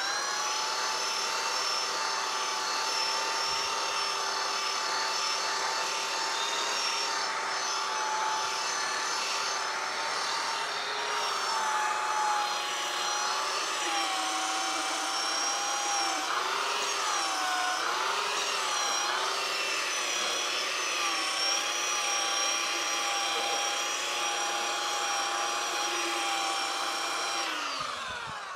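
Electric sander running on a black walnut beam with a steady high whine. About halfway through its pitch sags and wobbles as it is pressed into the wood, and near the end it is switched off and winds down.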